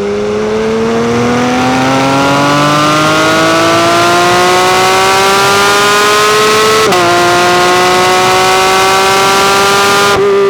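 Porsche 992 GT3 RS's naturally aspirated 4.0-litre flat-six at full throttle on track. Its high note climbs steadily for about seven seconds, dips sharply at a quick upshift, then climbs again.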